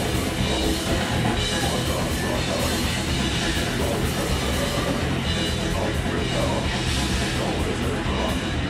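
Heavy metal band playing live with a drum kit: a dense, steady wall of loud music with no breaks.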